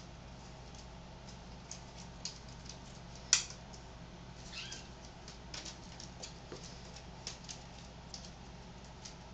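Kittens at play: scattered soft taps, scuffles and scratches from their paws and claws, with one sharper click about a third of the way in.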